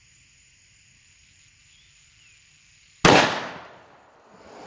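A single .357 Magnum shot from a Smith & Wesson 686 revolver with a 4-inch barrel, firing a Remington 125-grain semi-jacketed hollow point, about three seconds in. A sharp crack followed by a short echo that dies away within a second.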